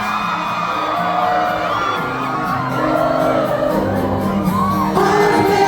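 Live pop band playing on a concert stage, with the audience whooping and shouting over the music.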